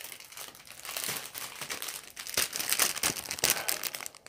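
Thin plastic packaging crinkling as it is handled, an irregular run of crackles.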